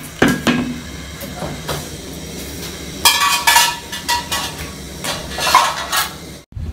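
Metal clinks and knocks on an aluminium cooking pot of bitterleaf on the stove, with a louder ringing clatter about three seconds in and another near the end, over a low steady hum.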